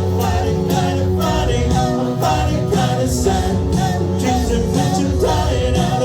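Music with singing over a steady beat of about two strokes a second.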